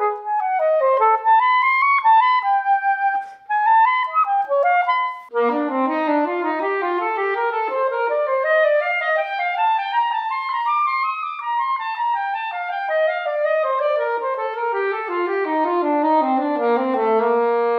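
Soprano saxophone playing quick note runs, then a long even scale climbing from low in its range to a high top note and descending back down, ending on a held low note.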